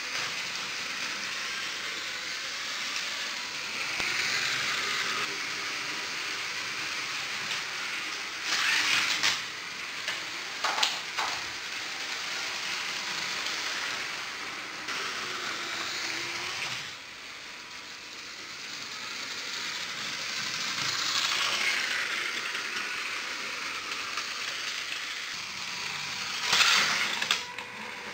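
Lego electric trains running on plastic track: a steady motor whir and wheel rattle that swells and fades as the trains move about. Several sharp clacks come about a third of the way in, and a cluster comes near the end.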